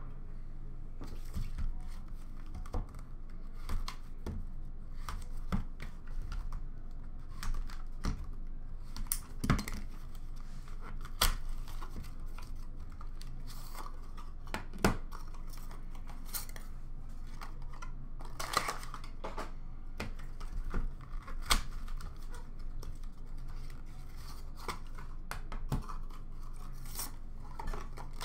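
Cardboard card box being opened and unpacked by hand: scattered rustling, tearing and sharp clicks as packaging is pulled apart and hard plastic card cases are handled and set down, over a faint steady low hum.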